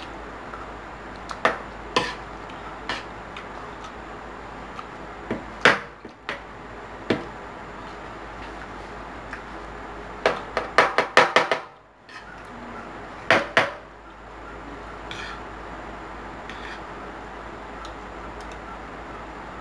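Metal spoon clinking and scraping against a plate of rice in scattered single taps, with a quick run of about eight taps about ten seconds in and two more shortly after, over a steady low hum.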